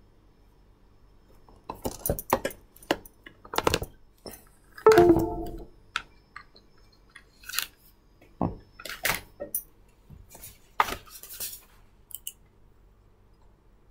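Irregular clinks and knocks of hard objects being handled, the loudest and longest clatter about five seconds in.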